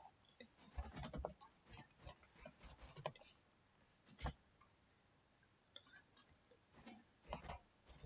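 Faint computer keyboard typing: runs of quick key clicks, broken by a quiet pause of about a second and a half midway.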